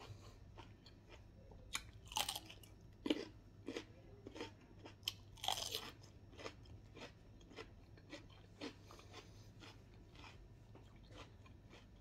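Close-up crunching and chewing of food, including bites of raw cucumber: a few loud, crisp crunches among many small chewing clicks.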